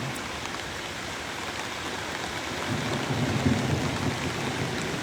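Steady rushing noise of flash-flooded Joplin Creek running high, mixed with falling rain. A low hum joins it from about halfway through until near the end.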